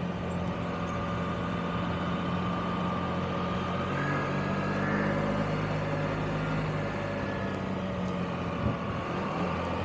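Touring motorcycle engine running at low speed, heard from the saddle with steady road and wind noise; the engine note shifts slightly about four seconds in, and a short knock comes near the end.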